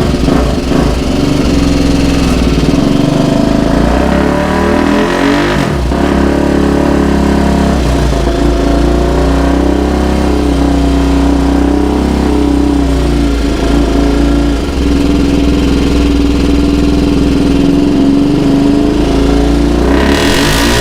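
Motorcycle engine, a Honda Titan built up to 353 cc with a reversed Sahara top end, running loud and steady through a new stainless-steel exhaust. Its pitch dips briefly a few times and rises near the end.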